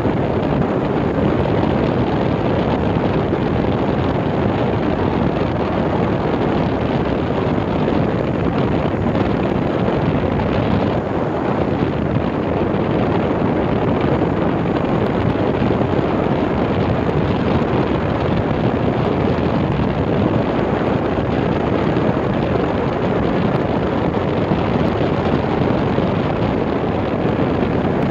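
Wind rushing over the microphone of a camera on a moving vehicle, with road and running noise beneath it: a steady, even rush with no distinct engine note.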